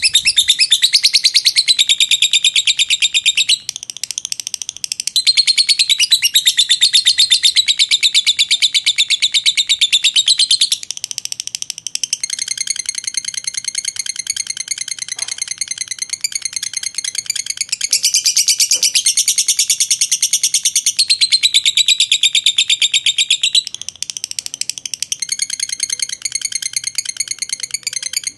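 Fischer's lovebird singing its long 'ngekek' song: a fast, high, rattling chatter of rapid notes that runs on without a break, swelling and easing in loudness several times.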